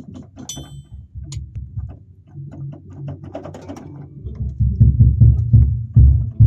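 Yamaha portable electronic keyboard sounding low, percussive notes, scattered at first. From about four seconds in they become a steady run of loud low beats, about three a second.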